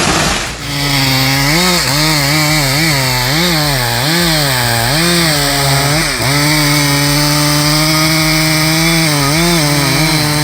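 Two-stroke chainsaw with a long bar cutting into a wide tree trunk. The engine pitch rises and falls repeatedly as the chain bites and eases in the cut, then holds steady at full revs through the rest. A short rush of noise opens it.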